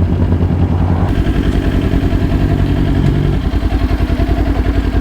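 Motorcycle engine idling with a steady pulsing exhaust note, settling to a lower, more distinct pulse a little past halfway.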